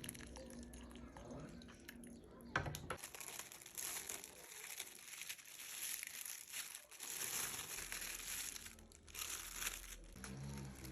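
Crinkling and rustling of a thin wrapper being handled, coming and going for several seconds, with a sharp click shortly before it starts.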